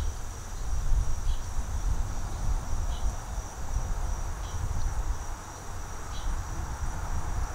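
Steady high insect drone, with a short high chirp about every one and a half seconds, over an uneven low rumble.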